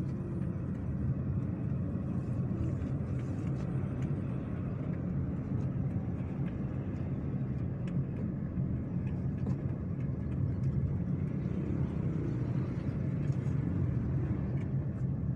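Car running with a steady low rumble of engine and road noise.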